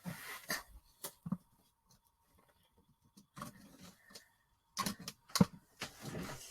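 Markers being handled at a table: scattered sharp clicks and light knocks with short rustles as a marker is capped and put away and others are picked up. The clicks thin out in the middle and come thicker near the end.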